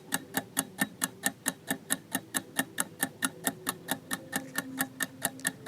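Countdown-timer sound effect: clock-like ticking, steady and even at about four ticks a second.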